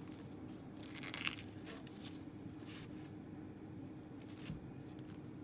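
Husk being peeled off an ear of cooked corn: the leaves tear and rustle in short, faint bursts, the strongest about a second in.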